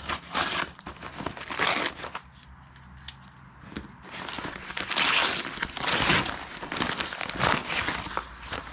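Product packaging being opened by hand: crinkling and tearing, in short bursts at first and then a longer, louder stretch of rustling about halfway through.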